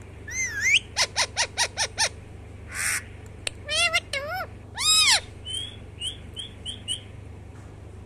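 Rose-ringed parakeet calling in a run of separate calls: six sharp squawks in quick succession about a second in, a few longer rising-and-falling screeches, the loudest about five seconds in, then a string of five short chirps.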